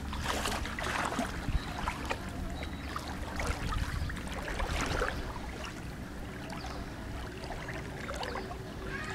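Pool water sloshing and swishing as a person wades into a swimming pool, with irregular splashes in the first few seconds that give way to softer lapping.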